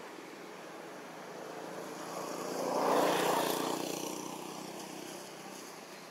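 A passing engine, growing louder to a peak about three seconds in and then fading away.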